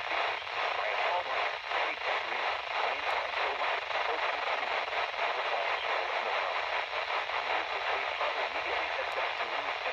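Steady radio static hiss with a fast flicker: a weak, noisy signal on a radio receiver.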